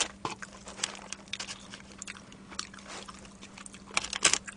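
Wooden chopsticks poking and picking through crisp fried chicken pieces in a paper-lined cardboard box: scattered light clicks, crackles and paper rustles, busier about four seconds in.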